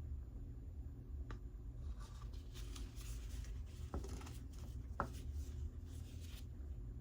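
Scratchy scraping and rubbing for about four seconds, with a few single light clicks, over a low steady hum.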